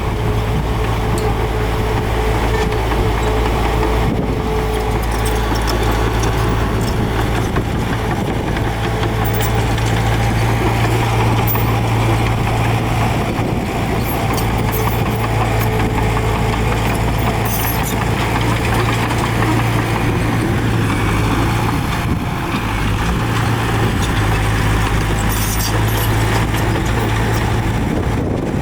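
A heavy earthmoving machine's diesel engine running steadily. Short high metallic clinks and rattles come in a few times, clustered near the middle and again near the end.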